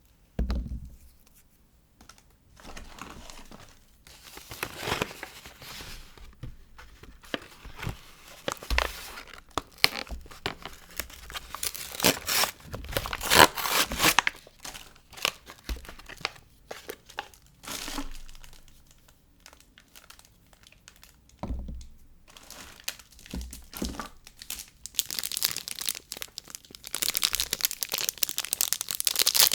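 Soap packaging being unwrapped by hand: irregular tearing, rustling and crinkling of the wrappers, with a few light knocks. The crinkling grows dense and continuous near the end.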